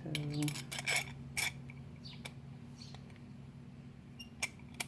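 Small metal parts of a boat engine's electric starter motor being handled and fitted together: a few light clicks and clinks, a cluster of them about a second in, another after two seconds and two more near the end.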